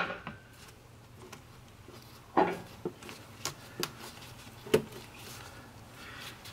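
Scattered plastic clicks and knocks as a hose is worked off the engine's plastic air intake box, the loudest about two and a half seconds in.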